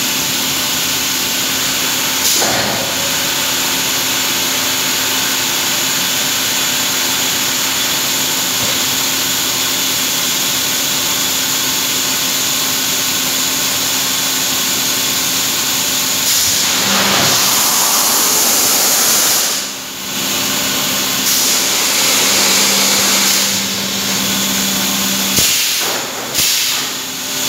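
Steam hissing from thermocol (expanded polystyrene) moulding machinery, over the steady hum of the plant running. The hiss grows louder for a few seconds about two-thirds of the way in, then again shortly after.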